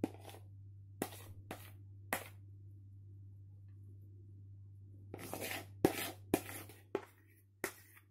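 Spatula scraping thick ricotta-and-chocolate cream out of a mixing bowl, with sharp taps of the spatula against the bowl. Scattered taps come first, and a denser stretch of scraping with several taps follows about five seconds in.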